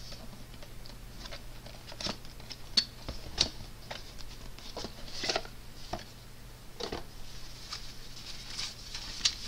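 Cardboard box being opened by hand: scattered rustles, scrapes and light clicks of the flaps and packaging, with the sharpest clicks about three seconds in. Near the end comes a softer, steadier rustle as the fabric vehicle seat protector is pulled out.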